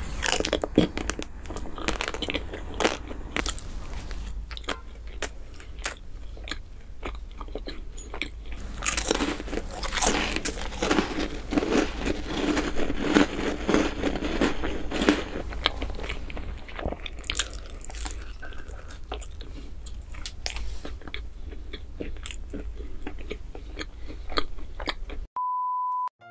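Crisp chocolate-coated biscuits bitten and chewed close to the microphone: repeated crunches and crackles with wet chewing. Near the end the eating stops and a short steady beep sounds for about a second.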